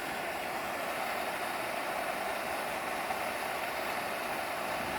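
Steady rushing of a waterfall running full after rain.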